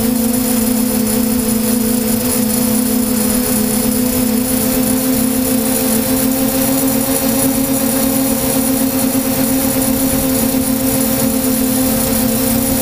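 DJI F550 hexacopter's six motors and propellers humming steadily in flight, at an even pitch, heard up close from the camera mounted on the airframe.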